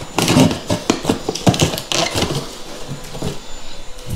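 In-ceiling speaker being handled and fitted into its drywall ceiling cutout: a run of irregular clicks, knocks and scraping, busiest in the first couple of seconds and thinning out after.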